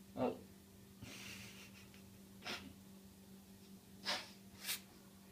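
A man eating a big sandwich with his mouth full and breathing noisily through his nose. There is a short falling vocal sound at the start, a longer breath about a second in, and three short sharp breaths later on, over a steady low hum.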